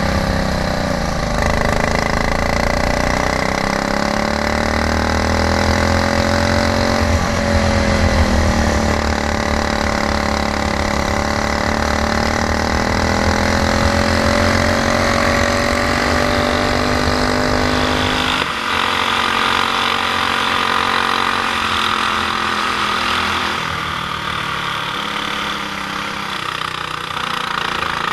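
Racing kart's stock Honda GX390 single-cylinder four-stroke engine running at speed, its pitch rising and falling as the kart speeds up and slows for corners. About two-thirds of the way through, that rising-and-falling note cuts off suddenly and a steadier engine sound carries on.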